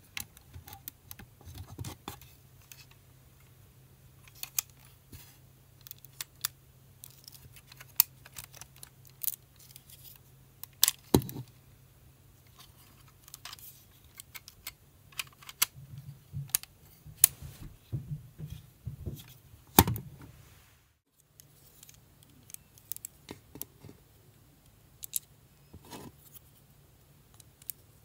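LEGO Technic beams and pins clicking and rattling as they are handled and fitted together: irregular sharp plastic clicks, some single and some in quick clusters, over a faint steady low hum.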